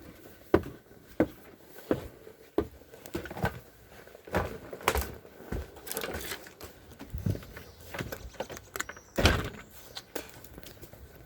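Footsteps and knocks as a person walks, a thud every half second to a second, with a louder thump about nine seconds in.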